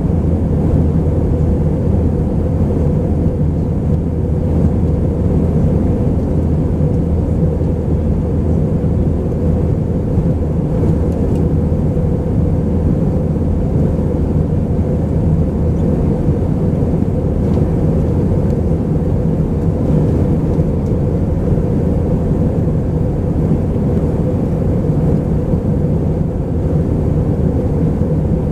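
Steady cabin drone of an Airbus A319-131 jet heard from a passenger seat, a constant low hum of the engines under a wash of airflow noise.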